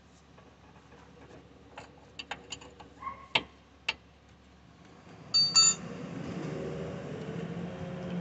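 A few light clicks and taps, then a short loud whine as the 2011 Chevrolet Impala's engine is cranked. The engine catches about five and a half seconds in and settles into a steady idle.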